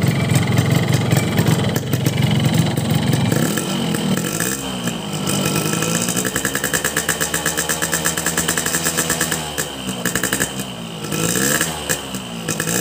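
Cold two-stroke motorcycle engine with a Boban C33 aftermarket exhaust being revved on the stand: held high for the first few seconds, then blipped up and down several times. The engine runs rough while cold, with a rattling knock the owner attributes to the piston rings.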